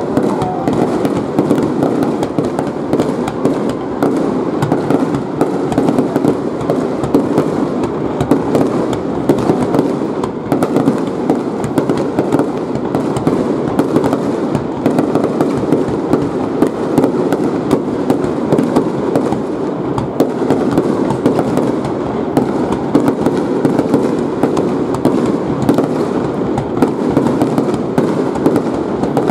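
Aerial fireworks shells bursting in quick, continuous succession: a dense run of overlapping booms with many sharp cracks throughout.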